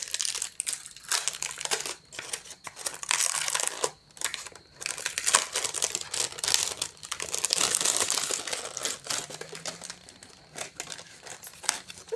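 Incense packet crinkling and rustling in irregular crackles as it is handled and opened, busiest about three seconds in and again around the middle.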